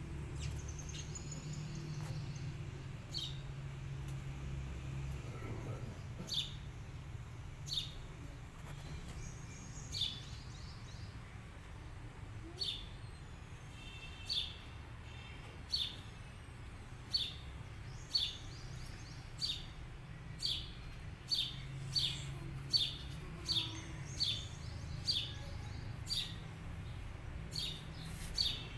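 A bird repeating a single short, sharp chirp, spaced out at first and coming faster, about once a second, from about halfway through, over a low steady background hum.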